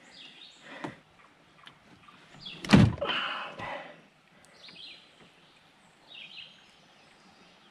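Handling noise while rigging a folding kayak's seat with paracord: one loud thump about three seconds in, followed by a short scrape, with faint rustles before and after.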